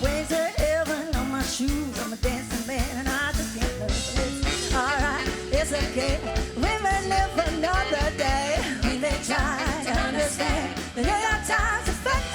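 Live band playing an upbeat song with a steady drum-kit beat under a lead melody with vibrato, including one long held note in the middle.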